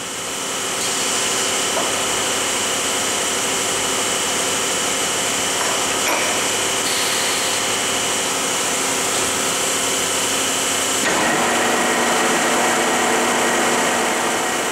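Lucas 441B-72 horizontal boring mill running: a steady mechanical whir with several whining tones. The tones shift to a new set about eleven seconds in.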